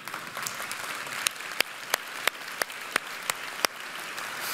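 Congregation applauding, a dense patter of clapping, with a run of louder, sharper single claps about three a second standing out over it.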